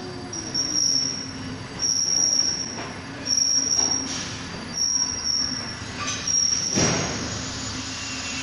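Automatic liquid sachet filling and sealing machine running, with a high-pitched squeal that repeats about every one and a half seconds over a steady low hum. A brief rushing noise comes about seven seconds in, after which the squeals stop.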